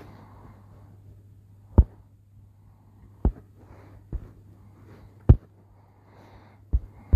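Fingertip taps on a phone touchscreen while erasing pixels in a drawing app: about half a dozen short, sharp taps at irregular intervals, roughly a second apart, over a low steady hum.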